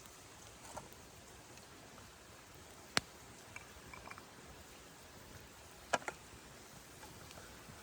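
Wood campfire with a few faint crackles and two sharp pops, about three seconds apart.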